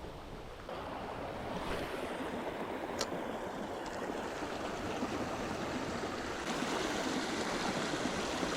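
Steady rush of flowing creek water, with a single sharp click about three seconds in.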